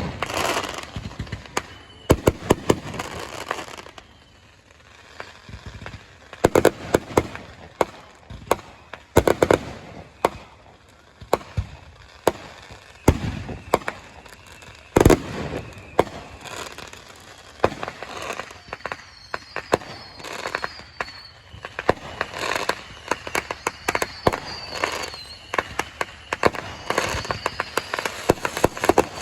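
Fireworks grand finale: rapid, irregular bangs of aerial shells with crackling between them. High whistling shells join in during the second half.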